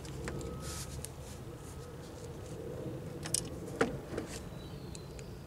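A few small, sharp metal clicks and taps as a screwdriver and a Singer 306 rotary hook assembly are handled, the loudest about four seconds in, over a steady low background hum.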